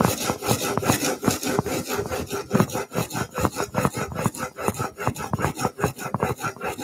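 Steel chisel bevel, held in a honing guide, scraped rapidly back and forth on a coarse abrasive sheet in quick, even rasping strokes: the coarse stage of grinding the bevel.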